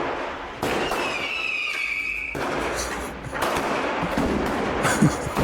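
Street fireworks going off: a firework's whistle, falling slightly in pitch, for about a second and a half, over continuous crackling, then a run of sharp bangs.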